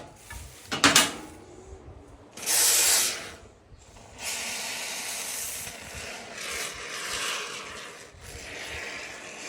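Aerosol can of expanding polyurethane foam spraying into holes in a golf cart seat cushion: a short hissing burst, then a long steady hiss from about four seconds in. A couple of knocks from handling the can about a second in.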